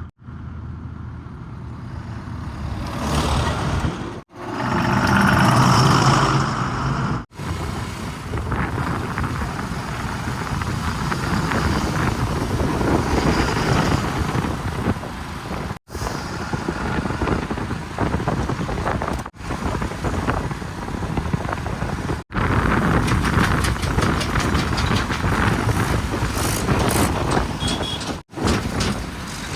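Diesel engines of a backhoe loader, tractors and a tipper truck running and revving, heard in a string of short clips that cut off abruptly one into the next; the engine note rises and is loudest about five seconds in.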